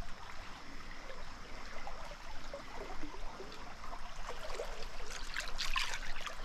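Small trout stream's water running and trickling steadily, with a few brief louder rustles about five seconds in.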